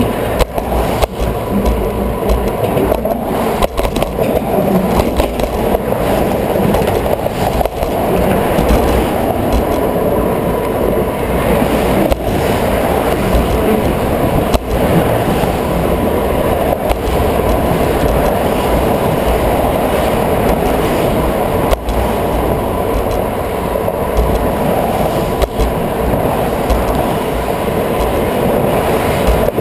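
Steady rolling noise of a bicycle riding along a concrete bridge sidewalk, picked up by a handlebar-mounted camera, with traffic passing alongside. Now and then a sharp click or knock from the bike and its mount going over bumps.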